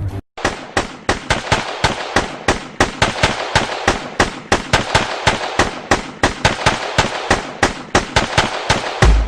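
Airsoft guns firing: a rapid, irregular string of sharp shots, several a second, starting just after a brief silence.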